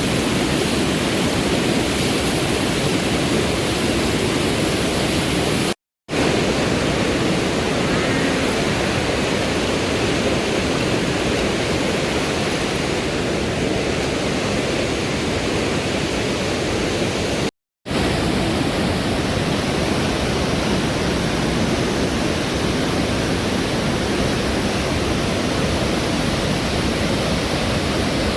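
Fast mountain river water rushing with a steady, even noise. It breaks off twice for a split second, about six and about eighteen seconds in.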